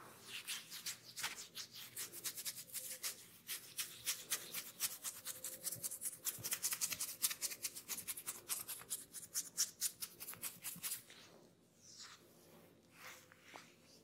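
Fingers rubbing quickly over the ear and oiled hair in a head massage, a fast crackly rustle of many strokes a second. It stops about eleven seconds in, leaving a few softer, slower rubs.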